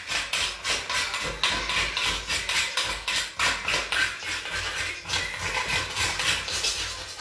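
Irregular scraping and tapping on the ribbed plate of a hot electric contact grill as loose fried breadcrumbs are gathered up, with a steady crackle of hot oil underneath.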